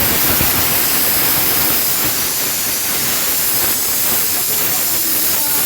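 Chicken and masala frying in a hot kadai, a loud, steady sizzling hiss that starts abruptly.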